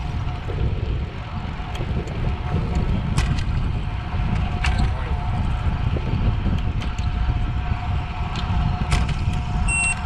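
Wind rushing over the microphone of a road bicycle riding at speed, a dense low rumble, with a steady thin whine and scattered clicks. A short electronic beep sounds near the end.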